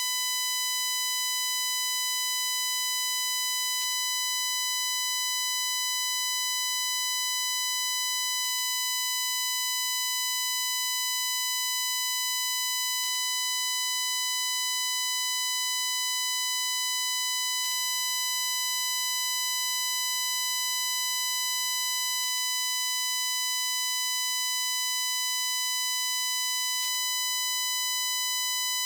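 Digital recording glitch from a Shure MV88+ microphone on a Samsung Galaxy S22 Ultra phone: a steady, shrill high-pitched buzz, an unchanging tone with a stack of overtones, in place of the intended woodland birdsong. Faint ticks come about every four and a half seconds.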